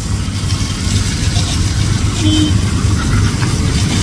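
Pressure washer running with a steady low hum, its water jet hissing as it sprays over a motorcycle engine's cylinder head to rinse it clean.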